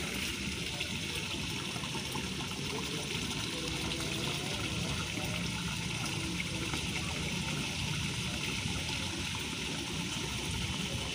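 Steady wind buffeting the microphone, a low flickering rumble under a constant rushing hiss, with no breaks.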